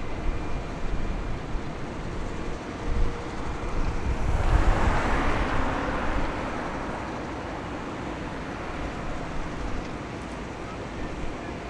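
Wind buffeting the microphone in gusts, with a rushing swell about four seconds in that dies away by about seven seconds. Under it runs a faint steady hum from the ship and tugboats.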